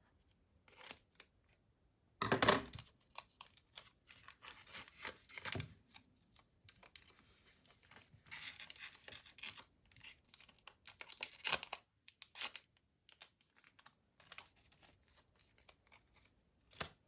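Packaging from a Pokémon card box being torn open by hand, in irregular rasping tears with crinkling in between; the loudest tear comes about two seconds in.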